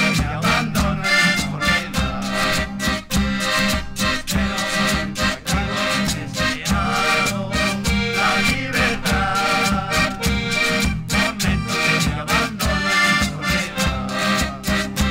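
Instrumental music played by an ensemble: a sustained melody over a quick, steady beat.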